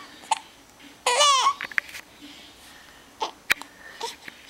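Newborn baby, about five weeks old, fussing with hunger and hiccups: one short, falling cry about a second in, brief squeaks and grunts around it, and a sharp little hiccup near the end.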